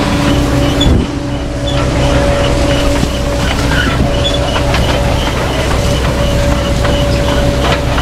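Grimme Ventor 4150 self-propelled potato harvester running while lifting potatoes: a steady machine drone with a held tone and scattered rattling clicks. About a second in, the sound changes abruptly and goes slightly quieter, and the lower of two steady tones drops away.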